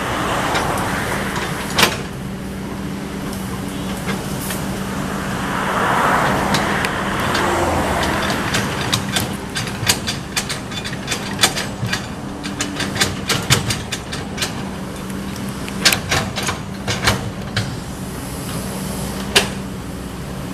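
Kobelco hydraulic excavator's diesel engine running steadily under work, with a string of sharp clanks and knocks through the second half.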